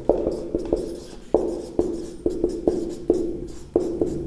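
Background music: a run of short struck notes, about two or three a second, each ringing on and fading before the next.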